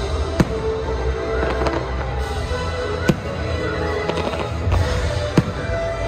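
Fireworks bursting in the sky with sharp bangs, the loudest about half a second in, about three seconds in and near the end, with smaller pops between. Show music plays steadily underneath.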